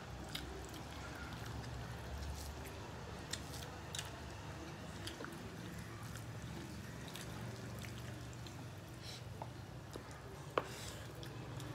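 Close-up eating sounds of rice and curry eaten by hand: fingers squishing and mixing food on steel plates, with wet chewing and lip-smacking as scattered short clicks. One sharper click comes about ten and a half seconds in, over a steady low hum.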